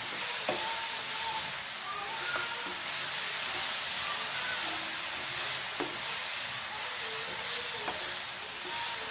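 Chopped onion, tomato and green chilli sizzling in a frying pan as a spatula stirs and scrapes them around, with a few light ticks of the spatula against the pan. This is the masala base for egg bhurji being sautéed.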